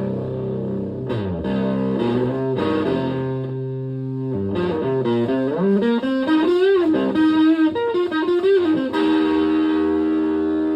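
Fuzzed electric guitar, a Stratocaster through a Tone Bender MK1.5-style fuzz pedal into a Twin Reverb-style amp. It plays a few long, sustaining notes, then a lead phrase with string bends and vibrato, and settles on one long held note near the end.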